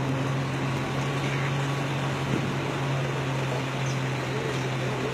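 Vehicle engine running steadily with a constant low hum, under road and wind noise, heard from the moving vehicle.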